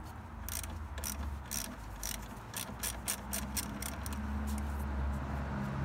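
3/8-inch ratchet with a 10 mm socket clicking as it loosens the nut on a car battery's negative terminal clamp, disconnecting the battery. A quick, uneven string of clicks with each back-swing, dying away after about four and a half seconds.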